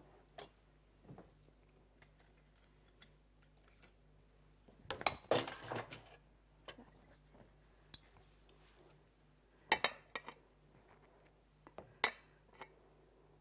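Kitchen utensils and dishes clinking and knocking: scattered light clinks, a longer clatter about five seconds in, and sharp metal clinks near ten and twelve seconds, as a spatula works in a stainless steel bowl of cooked rice.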